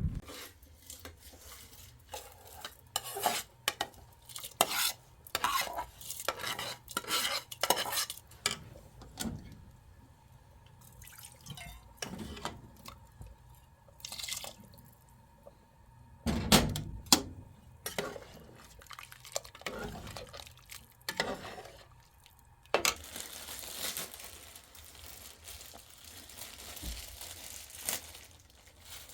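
A run of irregular clinks and knocks from objects being handled, thinning out after about ten seconds, then a steady hiss over the last five or six seconds.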